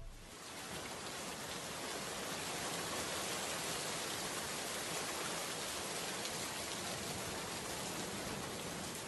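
Steady rain, an even hiss that builds over the first couple of seconds and eases slightly near the end.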